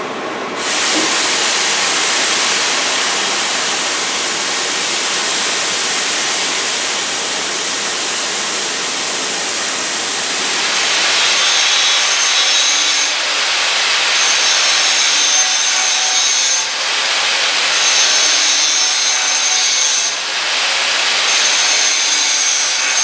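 Oxy-fuel cutting torch on a track carriage hissing steadily as it cuts a bevel in a steel plate. About halfway through, an angle grinder takes over, whining against the bevel edge as it grinds the root face. The grinder lifts off briefly three times.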